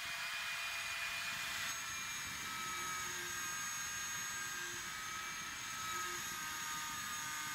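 High-speed milling spindle motor running with a steady whine and hiss while its end mill cuts an aluminium workpiece on a CNC-converted lathe.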